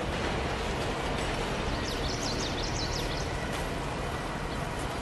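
Freight train of autorack cars rolling past: a steady noise of steel wheels on the rails and the cars running by. A bird chirps briefly about two seconds in.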